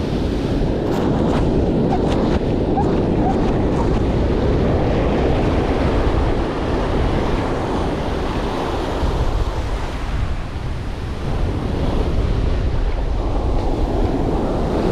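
Ocean surf breaking and washing up over the sand, a continuous rush of water and foam that swells and eases, with wind buffeting the microphone. A scatter of small clicks comes in the first few seconds.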